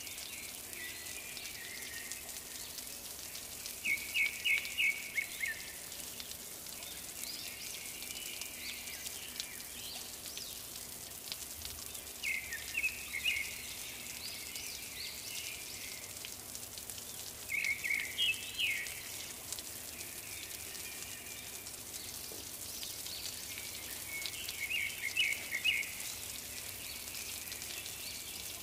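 A bird singing short, rapid trilled phrases, repeated every several seconds over a steady hiss.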